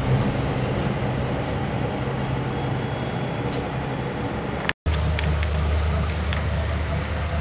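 Motor cruiser's engine running steadily, a low hum under wind and water noise. About two-thirds of the way through it cuts out for an instant and comes back at a lower pitch.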